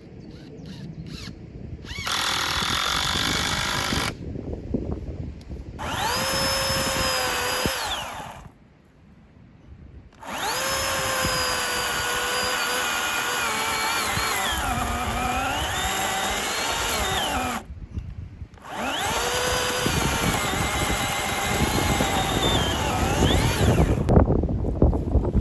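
Handheld electric power tool run four times, each time spinning up to a steady whine and winding down; in the longest run the pitch sags under load for a couple of seconds and then recovers. Wind buffets the microphone throughout.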